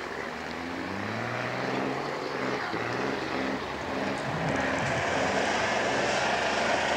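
Trial truck's diesel engine revving hard under load as it climbs a loose slope, its pitch rising and stepping up and down, getting louder toward the end.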